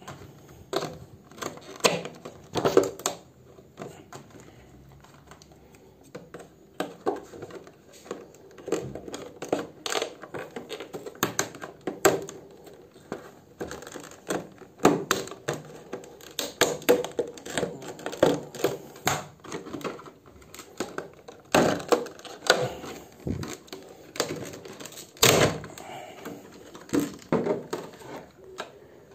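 Stiff clear plastic packaging being handled and pried open: many irregular clicks, knocks and crackles of hard plastic.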